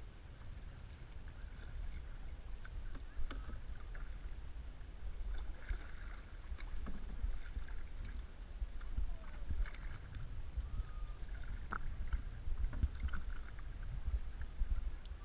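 Canoe being paddled: paddle blades dipping and water splashing and lapping along the hull in irregular small splashes, over a steady low rumble.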